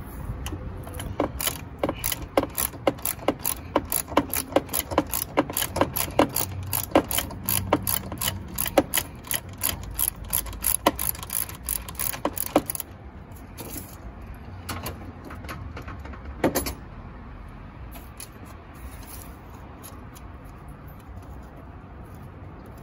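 Socket ratchet clicking in quick, even runs as it loosens a condenser fan motor mounting bolt. The clicking stops a little over halfway through, and only a few scattered clicks follow.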